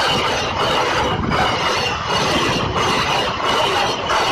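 Goods train wagons passing close by at high speed: a loud, continuous rush and rattle of wheels on rails that swells and dips in a regular beat about every 0.7 s as the wagons go by.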